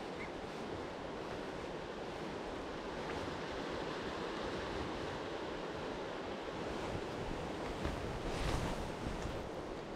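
Wind buffeting the microphone as a steady rush, with a louder cloth rustle against the camera about eight and a half seconds in.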